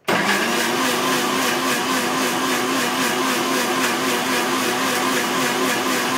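Electric mixer grinder switched on and running steadily, its motor whirring as the steel jar blends apple pieces, dates and milk into a milkshake.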